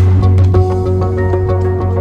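Background music: held notes over a steady bass, with the notes changing about half a second in and a faint ticking beat.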